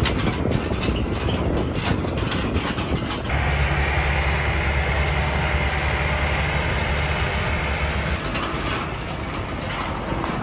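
Heavy truck running over rough ground, its body and load rattling and clattering. Through the middle few seconds a steady low engine drone stands out, then the clatter takes over again.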